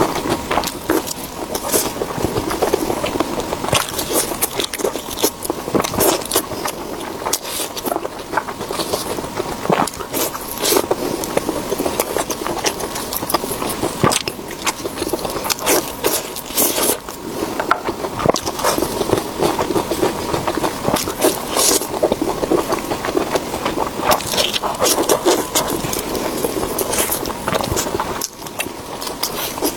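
Close-miked eating sounds: steady chewing and biting with many irregular crackly, crunchy clicks and some scraping.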